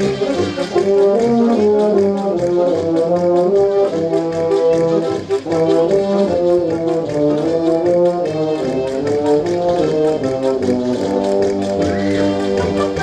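Brass band playing a tune, several brass instruments sounding held notes together as the melody moves.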